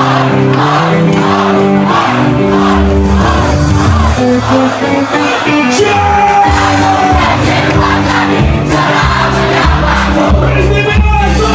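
Live band playing loudly, with a crowd singing along.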